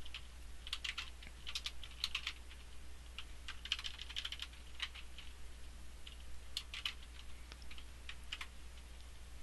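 Computer keyboard typing: irregular runs of keystrokes, over a steady low hum.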